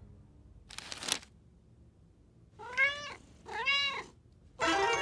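Cartoon cat meowing twice, each meow rising and then falling in pitch. A short swishing sound comes first, about a second in.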